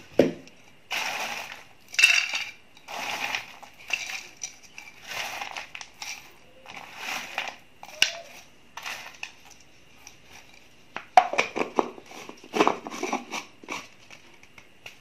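Crisp sun-dried ginger chips rustling and crackling as they are scooped up by hand, in separate scoops about once a second. Near the end comes a denser run of rattling clicks as the dry pieces drop into a plastic blender jar.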